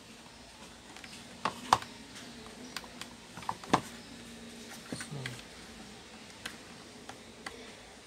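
Scattered light clicks and taps of the humidifier's plastic housing and water tank being handled, about eight in all, the loudest a little under two seconds in and again near four seconds.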